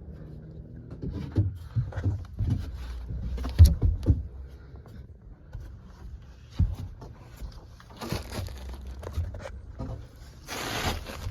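Handling noise from ductwork being worked on: scattered knocks, bumps and scrapes, the loudest just before four seconds in, then two short stretches of hissing noise near the end.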